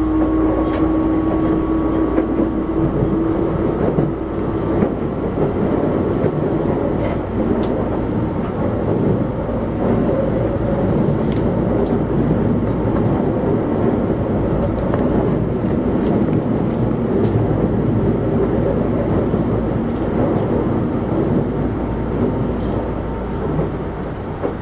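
Osaka Metro 66 series subway train running: a steady rumble of wheels on rail, with a steady hum that fades out about five seconds in.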